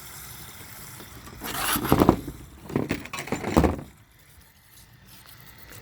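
Scraping and rattling of metal parts being handled on an old toilet cistern, in two rough bursts about a second apart.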